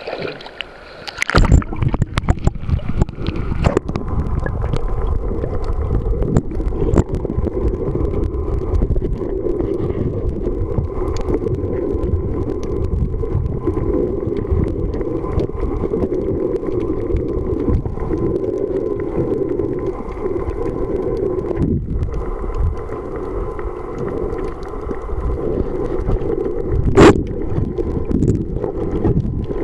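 Muffled underwater rumble and sloshing picked up by a camera's microphone once it goes under water about a second in, steady from then on. A single sharp knock sounds near the end.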